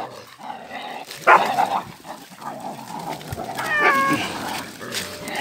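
Dogs barking and yipping around a sack holding three cats, with a short bark about a second in and a short high cry that slides down and then holds near the four-second mark, likely a trapped cat meowing from inside the sack.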